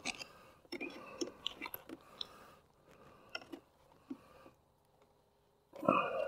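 Scattered small clicks and scrapes of hands handling metal mounting hardware at a roof edge, then a louder rustle just before the end.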